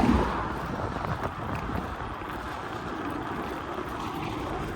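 Wind buffeting a phone microphone on a moving bicycle, over the steady rumble of the tyres rolling.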